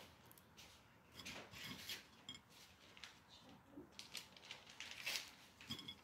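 Faint, short rustles and scrapes of fingers handling walnut halves and pressing them into the glazed top layer of a tray of pakhlava, coming in a loose string from about a second in.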